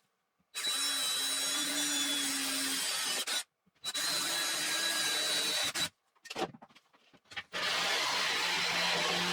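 A power tool working wood in about four bursts of one to three seconds each, the motor's steady whine under the cutting noise, each burst stopping abruptly.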